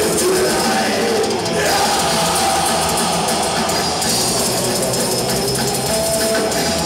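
Death-thrash metal band playing live: distorted electric guitars, bass guitar and a drum kit, a loud, dense and unbroken wall of sound with held guitar notes.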